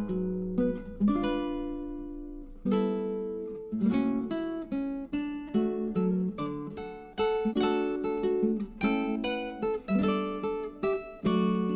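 Background music: acoustic guitar strummed and plucked in a steady rhythm, each chord ringing out and fading.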